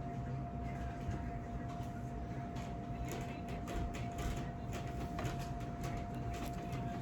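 A run of light, sharp clicks and taps, thickest in the middle, over a steady electrical hum with a constant tone.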